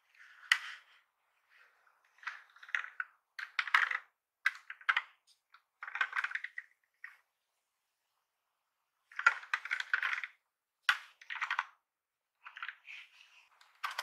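Plastic clicks, taps and short scrapes from a mechanical keyboard's casing being handled and turned over in gloved hands. The sounds come in irregular clusters, with a quiet gap in the middle.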